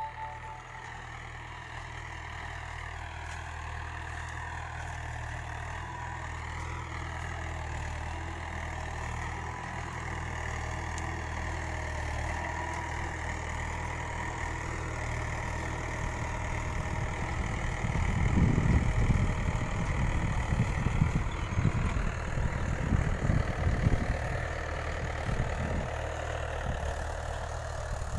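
Mahindra 475 DI tractor's four-cylinder diesel engine running steadily while pulling a five-tine cultivator through the soil. From about two-thirds of the way in, irregular low rumbles louder than the engine come and go.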